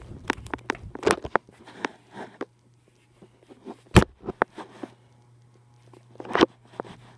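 Handling noise from a phone being carried and moved about: rustling and light clicks, with a sharp knock about four seconds in and another near the end, over a steady low hum.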